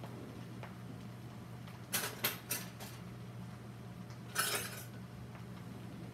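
Kitchen cupboard being rummaged through for a bottle: four quick clinks and knocks about two seconds in, then a longer rattling scrape about four and a half seconds in, over a steady low hum.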